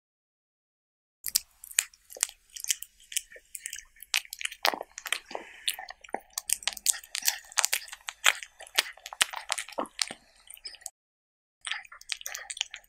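Cat eating up close, with rapid wet chewing and crunching of diced cucumber and tomato on a tortilla. It starts about a second in, breaks off briefly near the end, then resumes for a moment.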